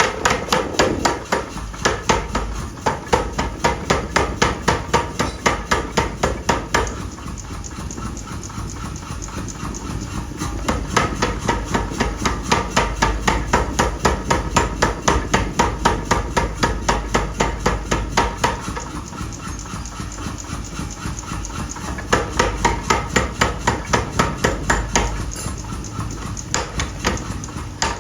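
Fast, evenly spaced hammer blows forging steel for an axe, about three strikes a second. The blows soften twice for a few seconds before picking up again.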